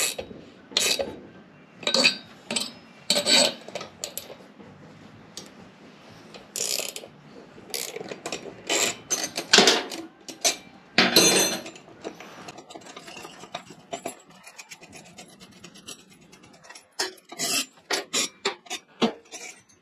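Spanner winding a nut along a threaded-bar bearing press, drawing a new wheel bearing into a motorcycle front hub: irregular metal rasping and clicking strokes, with a quicker run of light ticks in the second half. The bearing is going in smoothly and seating home.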